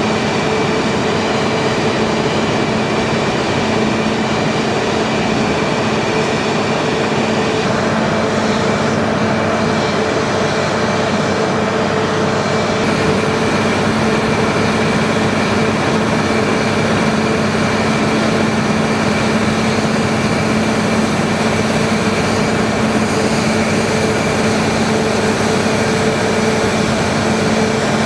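Steady mechanical drone of aircraft ground machinery running, with a constant low hum and a higher whine held throughout.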